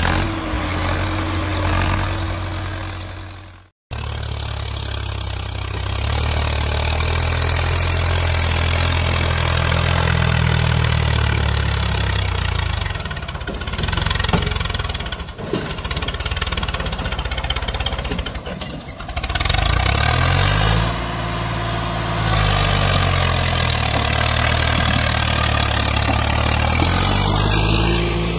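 Tractor diesel engine running under load while pulling a loaded trolley. The sound drops out briefly about four seconds in. In the second half the revs rise and fall again and again.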